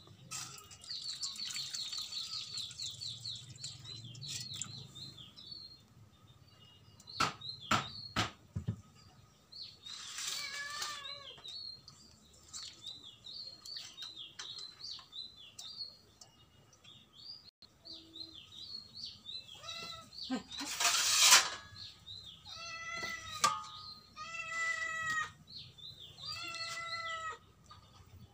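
Small birds chirping over and over, with several short animal calls, typical of fowl, from about ten seconds in. Under them come a few clinks of a steel bowl and water splashing as small dried fish are rinsed by hand, with the loudest splash about three quarters of the way through.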